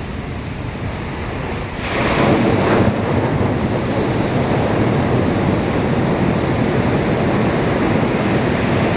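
Ocean surf washing onto the beach, a wave breaking and swelling about two seconds in, then a steady rush of surf.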